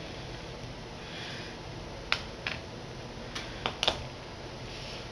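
Light clicks and taps of a clear acrylic stamp block being patted against an ink pad to ink a rubber flower stamp, about five short sharp clicks spread over the second half.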